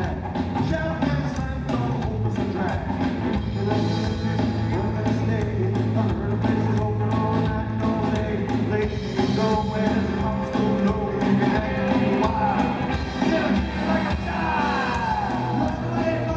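Live rockabilly trio playing loudly: hollow-body electric guitar, upright bass and a small drum kit, with singing.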